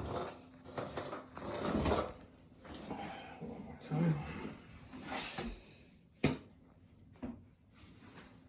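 Trowel scraping and spreading cement over an under-floor heating mat in a series of uneven strokes, with a sharp knock about six seconds in.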